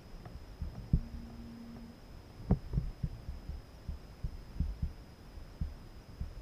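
Irregular low thumps and a few sharper knocks carried through a kayak's hull as the angler shifts and works his fishing rod, with a brief low hum about a second in.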